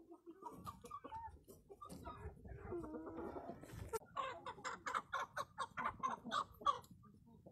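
Light Brahma chickens clucking: drawn-out calls in the first half, then a run of quick, evenly spaced clucks, about three or four a second, from about four seconds in.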